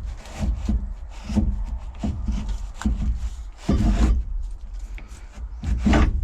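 Irregular rubbing, scraping and knocking of hands and tools working an excavator's pilot joystick valve loose.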